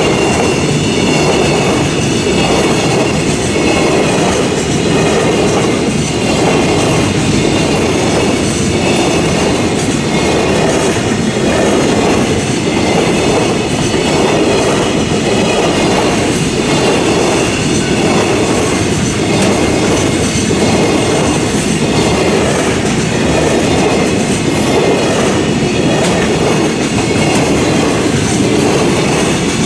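A train passing close by through a Japanese level crossing, its wheels clattering steadily over the rails for the whole time, with a regular rhythm of pulses that fits the crossing's warning bell ringing alongside.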